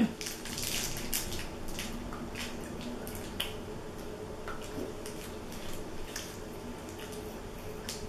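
Candy wrappers crinkling in the hands, mixed with wet chewing and lip-smacking of two people eating candy: scattered small clicks and crinkles. A faint steady hum lies underneath.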